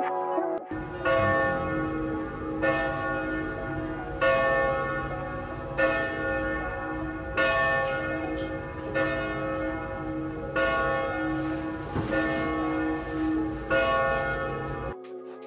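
Church bell tolling with evenly spaced strikes about a second and a half apart, each one ringing on into the next, over a low rumble. It cuts off suddenly near the end.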